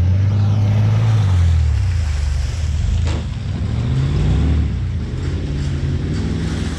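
Pickup truck engine revving up and down as the truck drives around a muddy dirt track, loudest in the first seconds and a little fainter after about three seconds in.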